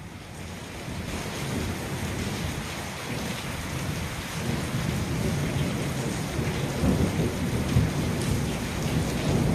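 Steady heavy rain falling, with low rolling rumbles of thunder in a thunderstorm.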